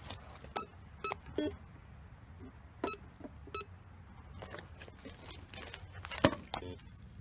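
Footsteps crunching on railroad ballast stones and dry leaves, irregular, with a sharper crunch about six seconds in. A metal detector gives a few short beeps as it is swept over the ground.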